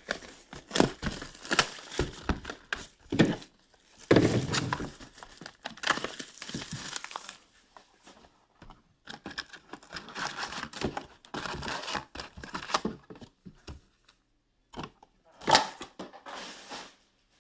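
2019-20 Upper Deck SP Authentic hockey card box and packs being ripped open: irregular bursts of wrappers tearing and crinkling, with short pauses and one louder tear near the end.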